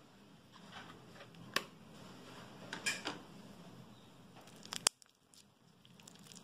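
Plastic slime tubs being handled, with sharp plastic clicks and crackles about a second and a half, three seconds and five seconds in. Near the end come softer sounds of fingers pressing into slime filled with small beads.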